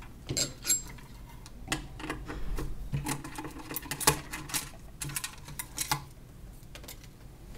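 Irregular clicks and taps of small hand tools, snips and a screwdriver, handled against an opened electronic meter's housing and circuit board.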